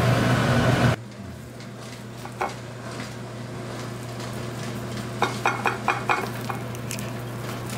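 Light clicks and clinks of a cloth-wrapped bundle of steamed sweet rice being handled with metal tongs on a ceramic plate and its cloth peeled off, a cluster of them a little past the middle. Underneath is a steady low kitchen hum, louder for the first second before dropping suddenly.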